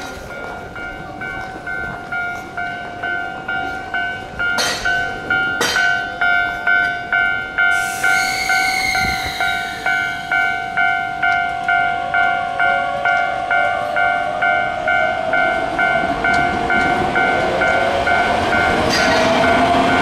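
Japanese level-crossing warning bell ringing steadily, about three strikes every two seconds, as a Keio Inokashira Line train comes through. About eight seconds in, a hissing squeal of train brakes starts, and near the end the whine of the train's motors rises in pitch as it passes.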